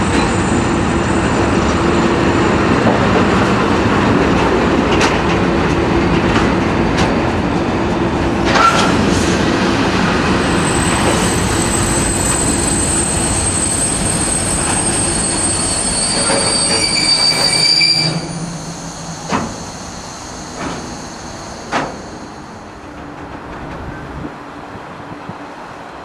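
Freight train of tank and container wagons rolling past with a loud, steady rumble of wheels on rail. From about ten seconds in, high-pitched wheel squeal rides over it. About eighteen seconds in the noise drops off sharply as the train draws away, leaving a few single wheel clacks.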